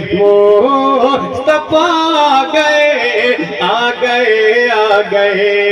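A man singing a naat, drawing out long ornamented vowels that slide up and down in pitch, over a steady low tone.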